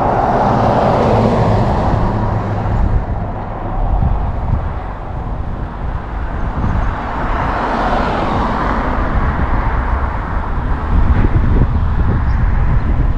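Street traffic noise: cars passing, with swells about a second in and around eight seconds in, over a steady low rumble.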